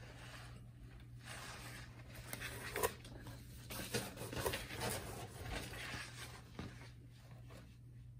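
Rustling and brushing of a mesh basketball jersey being handled and turned over close to the microphone, with a sharp tap about three seconds in.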